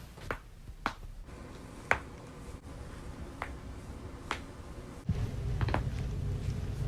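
Neck joints cracking during a chiropractic adjustment: several single sharp pops spread over a few seconds, the loudest about two seconds in. A low steady hum comes in about five seconds in.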